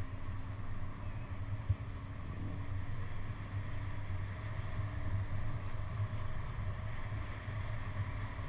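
Engine of a slow-moving vehicle running steadily with a low hum, with wind on the microphone and a single sharp thump just under two seconds in.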